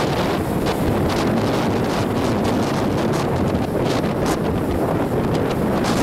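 Strong wind blowing across the microphone: a loud, steady rush with gusty flutter throughout.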